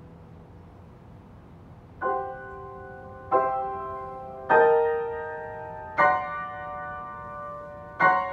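Steinway grand piano: about two seconds of soft, fading sound, then five loud chords struck roughly a second and a half apart, each left to ring and die away.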